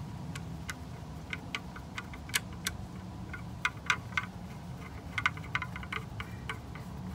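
Hand screwdriver turning screws down into the plastic housing of a pool pump's drive, giving irregular small clicks and ticks, with a steady low hum underneath.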